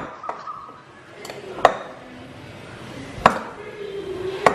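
Flour dough being kneaded by hand in a glass mixing bowl, with three sharp knocks and clinks, about a second and a half apart, as the glass bowl and the fork inside it are jostled.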